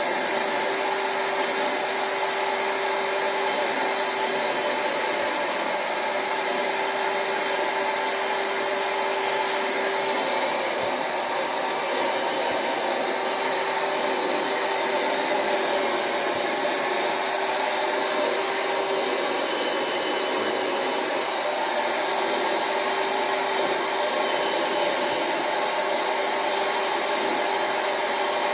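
A Rug Doctor carpet extractor's vacuum motor runs steadily while its upholstery hand tool sucks cleaning water back out of mattress fabric. The steady rush is even throughout, with a faint hum that comes and goes.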